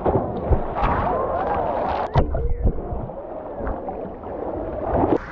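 Asian elephant swimming and splashing in a deep pool, the water churning and sloshing around a half-submerged camera, with a sharp knock about two seconds in.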